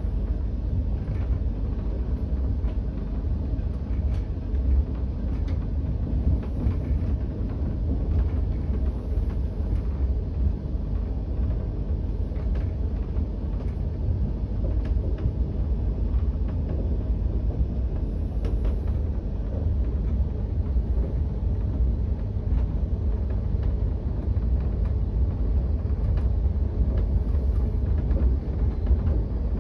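Steady low rumble of a passenger express train running slowly over the rails, heard from aboard, with a few faint scattered clicks.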